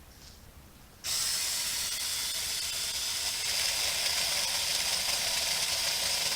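Saker mini battery-powered electric chainsaw switched on about a second in and running steadily, a high mechanical whir of motor and chain.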